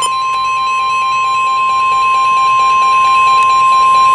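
NOAA Weather Radio's 1050 Hz warning alarm tone: one loud, steady, single-pitch tone. It is the attention signal that comes before a tornado warning broadcast.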